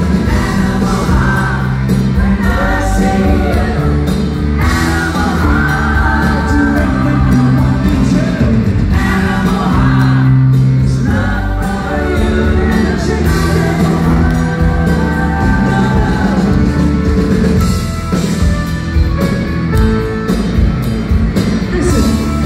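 Live rock band playing through a PA, with a male lead vocalist singing over keyboards and a steady bass line.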